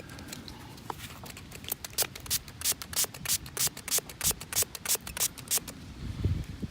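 Hand-held trigger spray bottle squirted again and again onto a freshly dug piece of jewellery to wash the dirt off, about three quick squirts a second.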